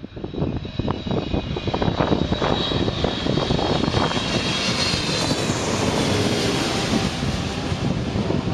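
Boeing 777-300ER's GE90-115B turbofan engines passing on landing approach: a steady jet rumble with a fan whine that swells to its loudest a little past halfway.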